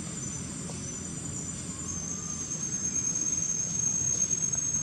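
Forest insects calling in steady high-pitched tones, a further tone joining about two seconds in, over a low steady rumble.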